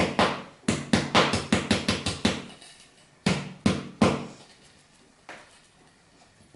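Metal saucepan holding a steamed chocolate cake tapped against a table to loosen the cake: a quick run of knocks for about two and a half seconds, then four spaced single knocks, the last one fainter.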